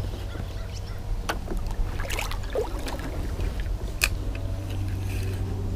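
Steady low rumble on a camera microphone mounted on a kayak, with a handful of sharp clicks and knocks from fishing gear on the kayak, one about four seconds in.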